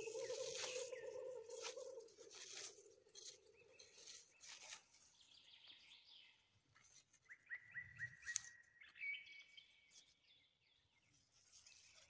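Faint rustling and crackling of dry leaves and forest litter as a mushroom is cleared with a knife and pulled from the ground, with a steady low hum over the first few seconds. About seven seconds in, a bird gives a quick run of short rising chirps, then a few higher held notes.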